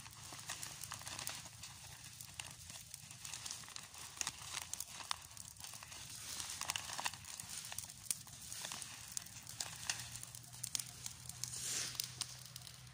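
A pile of dry leaves burning, crackling with irregular sharp snaps over a soft hiss.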